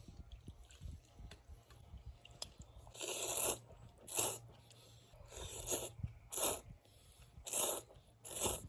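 A series of about six crunches, roughly a second apart, beginning a few seconds in, over a low background rumble.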